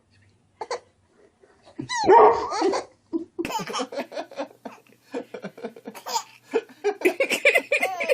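A dog barks once about two seconds in, followed by a baby laughing in a long string of short bursts.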